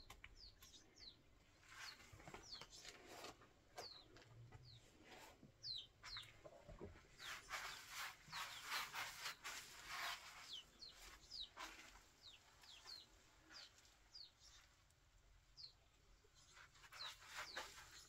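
Faint birdsong: small birds giving short, falling chirps every second or so, with a denser stretch of scratchy noise around the middle.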